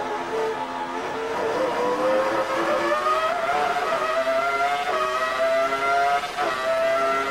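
Acer-badged Ferrari 3.0-litre V10 of a 2001 Prost AP04 Formula One car, heard onboard, accelerating out of a corner. Its pitch climbs through the gears, with quick upshifts about five and six and a half seconds in.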